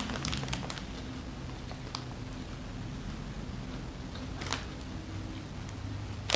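Popcorn being chewed with the mouth closed and a crinkly plastic snack bag being handled: scattered soft crackles, with a sharper one near the end, over a faint steady low hum.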